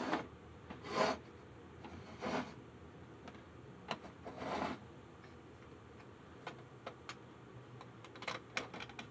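Hands handling a plastic Plasticville HO-scale motel model on a workbench: a few soft rubbing swishes in the first half, then scattered light plastic clicks and taps.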